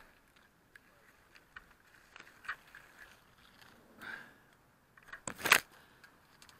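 Hedge twigs and leaves scraping and crackling against a crashed FPV drone's onboard camera as a hand reaches in to pull it out: scattered small clicks, then a loud close rustle about five and a half seconds in. The drone's motors are silent.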